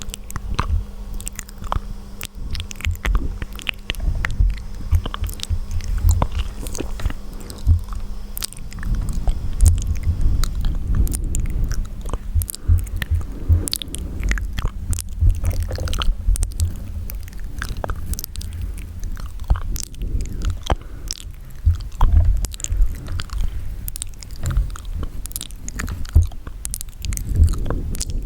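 Wet mouth sounds close to the microphone: a dense, irregular run of small clicks, smacks and squishing sounds from lips, tongue and saliva.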